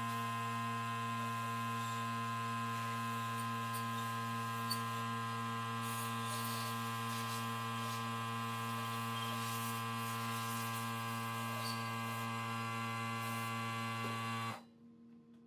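Portable electric air compressor running with a steady mechanical hum, then shutting off abruptly near the end.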